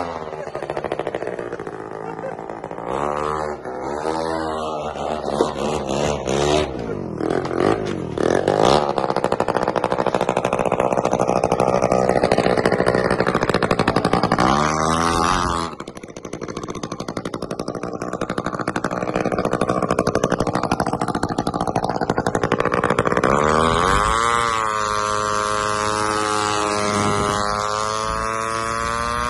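Small minibike engine revving up and down, its rear wheel spinning on a car door panel laid on the pavement. The revs climb and fall several times, hold high for several seconds, drop off sharply around halfway, then climb again near the end.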